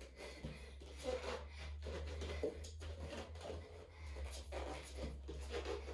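Bare hands and feet softly patting and rubbing on a wooden floor and rug during bear walks on all fours, over a low steady hum.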